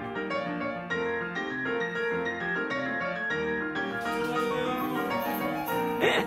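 Background piano music, a steady run of plucked-sounding notes. A brief loud sound cuts in near the end.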